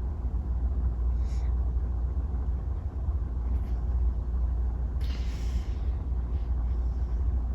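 Steady low room rumble with no speech, and a brief rustle about five seconds in.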